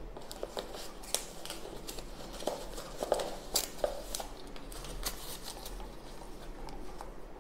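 Unboxing handling noise from a cardboard watch box: scattered light clicks, taps and rustling as the soft packing insert is pulled out and the watch is lifted from the box.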